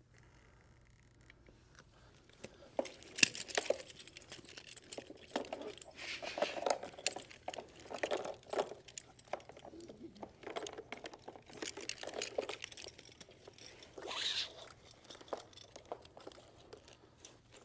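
Nylon backboard straps being pulled tight through their buckles by hand, starting about two and a half seconds in: webbing rustling and sliding, with buckles clicking, the sharpest click about three seconds in.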